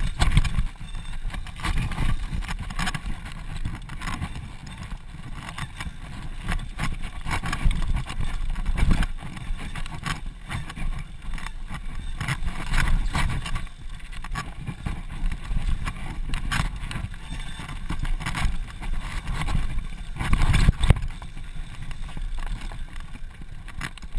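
Mountain bike riding down a rough, dry dirt trail: wind buffeting the microphone with a low rumble, and the bike rattling and knocking over rocks and bumps.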